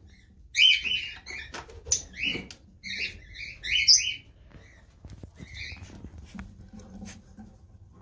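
Small caged parrots, cockatiels and a red-rumped parakeet, chirping in quick runs of short, high calls. The calls are thick through the first half and sparse after, with a few light knocks and clicks among them.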